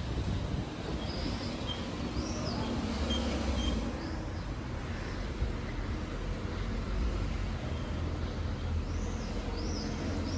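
City street ambience: a steady low traffic rumble, with short high bird chirps over it in a cluster in the first few seconds and again near the end.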